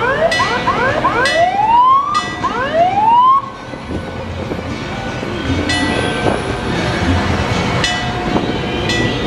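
Fire apparatus siren sounding in quick rising whoops, about two a second, which cut off sharply a few seconds in. After that an engine rumbles, with several sharp ringing strikes.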